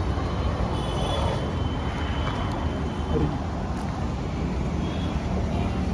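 Steady rumble of road traffic and vehicles, with faint voices in the background.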